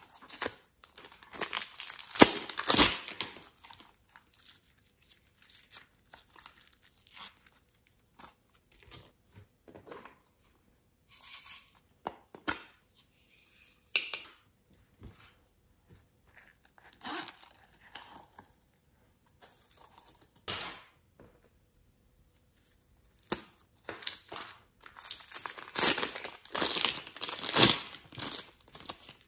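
Crinkling and rustling of a thin plastic piping bag as it is squeezed and peeled off soft clay, with squelches of the clay and slime. The sound comes in irregular bursts, busiest in the first few seconds and again in the last several.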